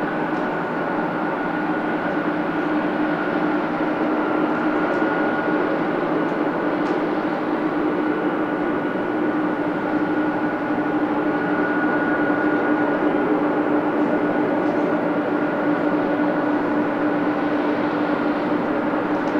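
Boeing 777F's GE90 jet engines running steadily at low power: an even rush with a constant whine at a fixed pitch.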